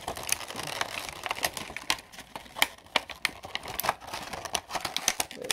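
Stiff clear plastic packaging crinkling and crackling in irregular sharp clicks as hands flex and pry it open.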